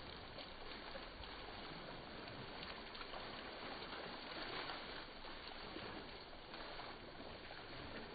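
Water splashing and sloshing as fresh khanom chin rice noodles are rinsed by hand in a plastic colander, with water poured over them from a scoop: a steady, fairly faint splashing.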